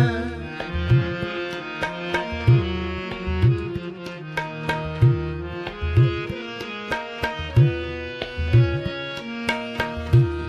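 Instrumental break in a devotional hymn: tabla playing a steady rhythm of deep strokes under held melody notes, with no singing.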